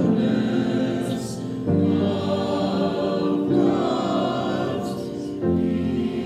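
Mixed choir of men's and women's voices singing held chords, changing chord about two seconds in and again near the end.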